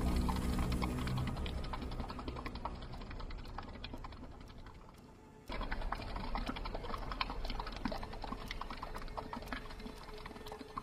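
Rapid, irregular clicking like typing on a keyboard, fading away, then cutting back in suddenly about halfway through and fading again.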